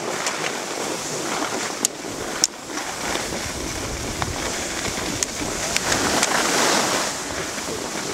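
Skis hissing and scraping over packed snow while skiing downhill, with wind rushing on the microphone; the hiss swells about two-thirds of the way through. A few short sharp clicks stand out above it.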